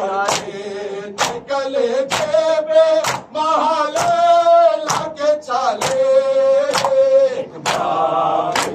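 Men singing a noha, an Urdu lament, with held notes, while a crowd strikes their chests in unison in matam: a sharp slap of many hands about once a second.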